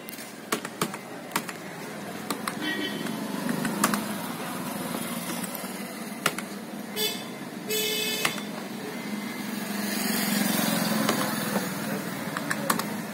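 Street traffic with motorcycles and other vehicles passing, swelling twice. A few sharp clicks come in the first half, and two short high tones about seven seconds in.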